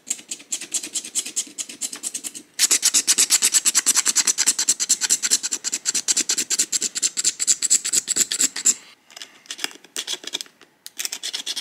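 Stone burin scraping hard and fast along a groove in a deer leg bone, in rapid repeated strokes, as a needle blank is cut free from the bone. The strokes grow louder about two and a half seconds in, thin out after about nine seconds, then pick up again near the end.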